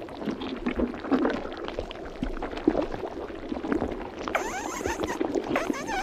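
Stomach gurgling and churning digestion sounds: a dense run of irregular gurgles and bubbling squelches with quick pitch slides, growing brighter and busier about four seconds in.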